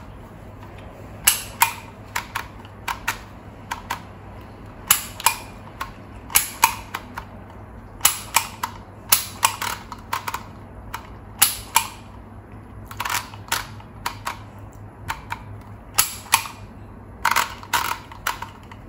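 Dymo Organizer Xpress handheld embossing label maker: the letter wheel is turned and the grip squeezed again and again. Each squeeze gives a sharp snap or a quick pair of snaps as a letter is pressed into the plastic tape, about one a second at uneven intervals.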